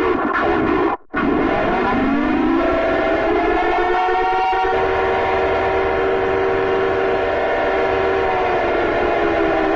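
Siren-like alarm tone of an Emergency Alert System alarm: after a brief cut about a second in, several tones slide upward together, hold steady, then slide back down near the end.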